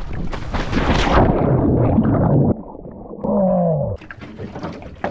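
A loud rushing noise that cuts off suddenly about two and a half seconds in, followed a little later by a man's long cry that falls in pitch.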